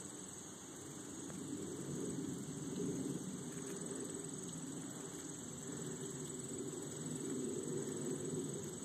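A steady high-pitched insect chorus, like crickets, running over a low wavering hum that swells and fades.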